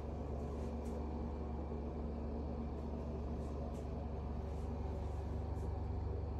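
Street traffic: a steady low rumble of vehicles with a constant engine hum.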